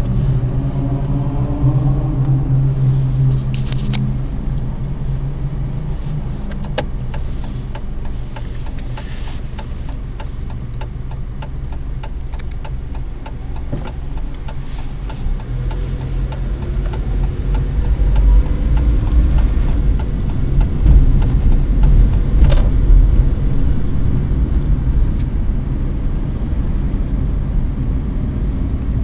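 Car running, heard from inside the cabin: a steady engine note at first, then driving on with low road and tyre noise that grows louder about two-thirds of the way through as it gains speed. A long run of quick, regular ticks sounds through the middle.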